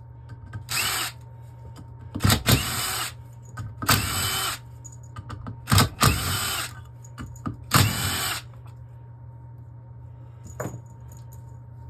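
Cordless power driver whirring in five short bursts of under a second each, spinning out the small bolts of a 6L80 transmission valve body, with a few sharp metallic clicks between the runs.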